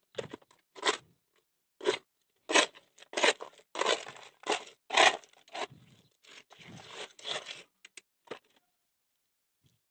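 A hand scraping and scooping a dry mix of cement, sand and gravel aggregate, working it into poured water for concrete: an irregular run of gritty crunching scrapes that dies away about eight seconds in.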